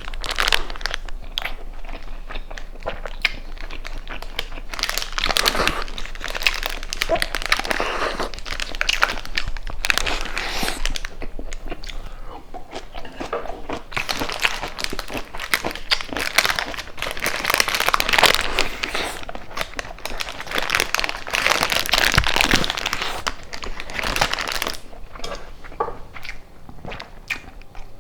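Close-miked wrapper of a rice burger crinkling and crackling as it is handled and peeled back, mixed with bites and chewing.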